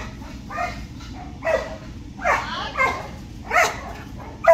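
A dog barking repeatedly while running an agility course, a string of short barks about one every two-thirds of a second.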